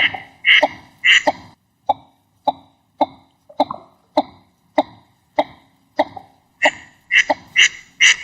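Northern shoveler duck calling a steady series of short, clipped notes, about two a second. The notes are softer and lower through the middle, then turn louder and sharper again in the last second or two.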